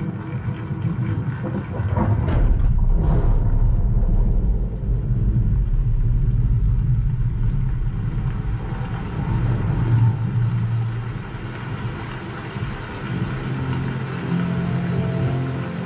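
Dolby Atmos demo trailer playing through a home cinema's surround sound system: deep rumbling effects, with two brief rushing sounds about two to three seconds in, and held musical tones coming in near the end.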